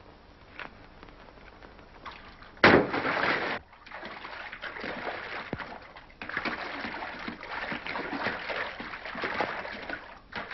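Water splashing: a sudden loud splash about two and a half seconds in, then continued splashing and sloshing, heard on an old, thin-sounding film soundtrack.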